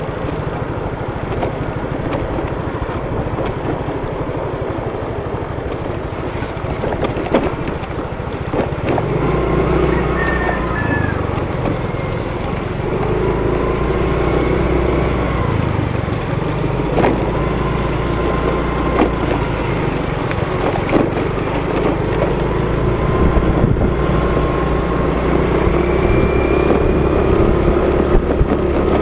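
Small motorcycle engine running under way, with wind noise on the camera microphone and a few sharp knocks.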